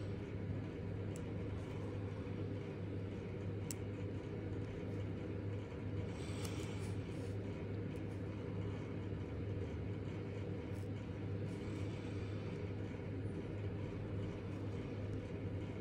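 Steady low background hum, unchanging throughout, with a few faint ticks.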